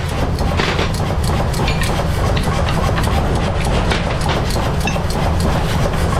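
A machine running with a steady low rumble, with frequent irregular clicks and knocks over it, as in a workshop at work.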